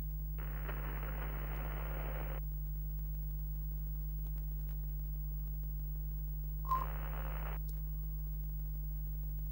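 A steady low electrical hum, with two bursts of static hiss: one of about two seconds just after the start, and a shorter one about seven seconds in that opens with a brief blip.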